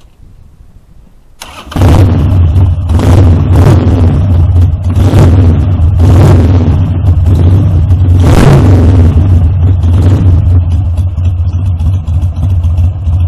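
A 2003 Harley-Davidson Sportster 1200 Custom's air-cooled V-twin is started. After a brief crank it catches and runs, and the throttle is blipped about five times. It then settles into a steady idle over the last few seconds.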